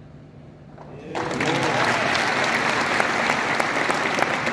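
Audience applauding, breaking out suddenly about a second in and continuing as dense, steady clapping.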